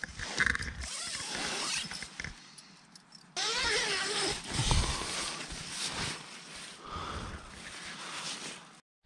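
Nylon tent fabric rustling and a zipper as the tent door is opened, with handling noise on the camera.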